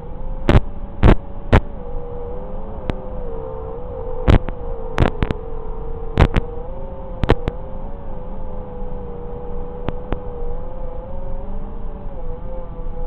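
FPV quadcopter's motors whining at high throttle, one steady pitched whine that wavers slightly up and down as the throttle changes. About a dozen sharp crackles break through it, mostly in the first seven or eight seconds.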